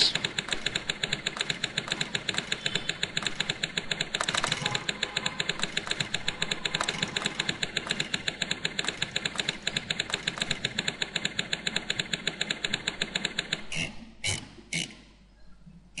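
Typewriter sound effects: rapid, even keystroke clicks as text types out, with a carriage-return sound at a line break about four seconds in. Near the end the clicking stops and a few separate clunks follow, the paper being pulled out as the typing finishes.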